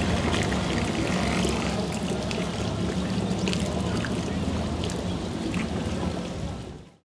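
Flowing river water splashing and trickling steadily, fading out near the end.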